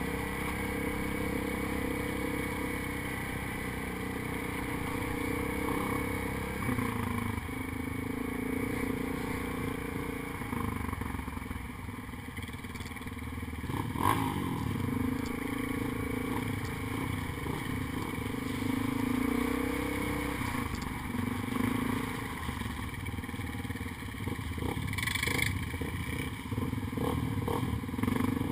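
ATV engine running as the quad rides a rutted dirt trail, its pitch rising and falling with the throttle. A sharp knock about halfway through and several shorter knocks near the end, from the machine jolting over bumps.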